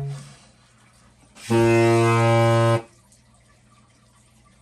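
A homemade PVC-pipe and balloon air horn blowing one low, steady honk a little over a second long, about a second and a half in.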